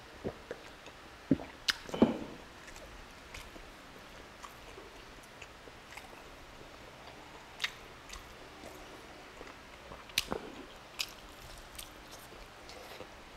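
Close-miked wet chewing and smacking of tender beef stew, with scattered sharp mouth clicks. In the first two seconds there are a few louder clicks and a gulp as water is drunk from a glass mug.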